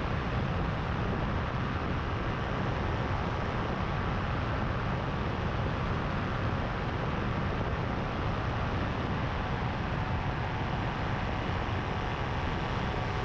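Paramotor engine and propeller running steadily in flight, with wind rush, a dense, even noise heaviest in the low end.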